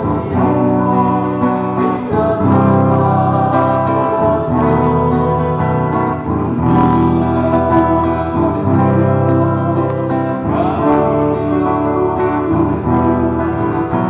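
Church hymn sung with guitar accompaniment, a steady sung song with strummed chords.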